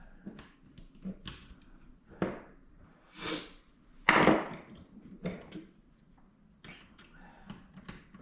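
Clicks and knocks of parts and tools being handled during fuel pump work, with the loudest knock about four seconds in.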